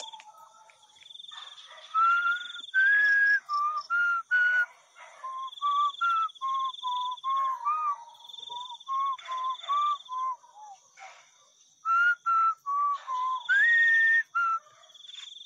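A person whistling a tune in short, breathy notes that step up and down in pitch, with a longer rising note near the end. Behind it, an insect trills in repeated bursts of about a second.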